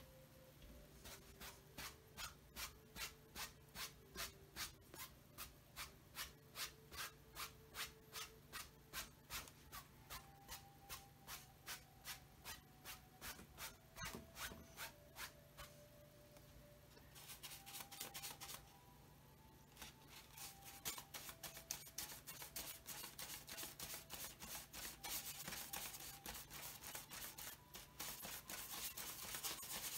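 Paintbrush scrubbing paint onto a stretched canvas in regular strokes, about two a second, then, after a short break about two-thirds in, in faster, denser strokes.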